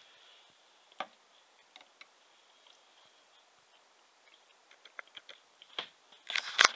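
Light clicks and taps of a winemaking hydrometer knocking against a plastic test jar as it is lowered into the wine, scattered at first and with a louder cluster of taps near the end.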